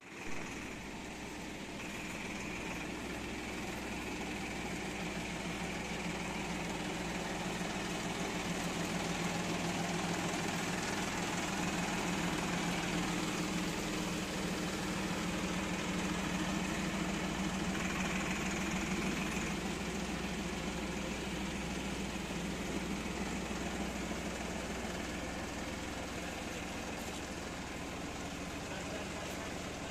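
Massey Ferguson 9563 tractor's common-rail diesel engine running steadily, a little louder through the middle.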